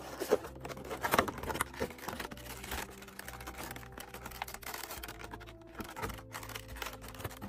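Clear plastic blister packaging crinkling and crackling as it is handled, in irregular bursts that are busiest in the first couple of seconds, over quiet background music.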